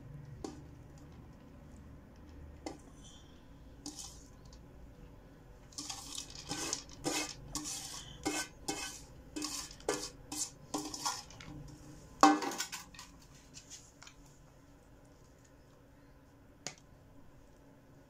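Metal cooking pans knocking and scraping together as boiled rice is tipped and scraped from one pan into another: a run of quick scrapes and taps starting about a third of the way in, with one loud clang near the middle.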